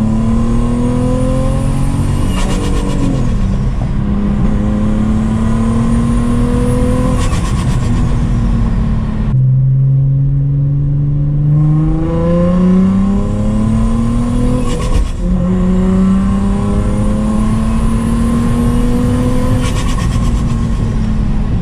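Turbocharged Infiniti G35's 3.5-litre V6 pulling under acceleration, its pitch climbing slowly in several long runs that each break off and drop back at a gear change.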